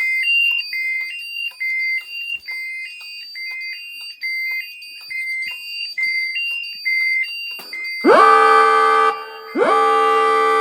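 Fire alarm system sounding during a test: an electronic sounder alternating between two high tones in a quick repeating pattern, then two loud horn-like blasts of a lower, richer tone, each about a second long, near the end.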